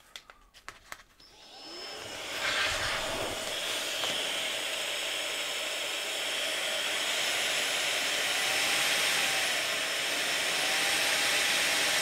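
A KACNON VC43 3-in-1 handheld vacuum/air duster runs as a blower through its inflation nozzle, filling a nylon storage bag with air. A few handling clicks come first, then the small electric motor spins up about a second in and runs on as a steady rushing whoosh with a thin whine that wavers slightly partway through.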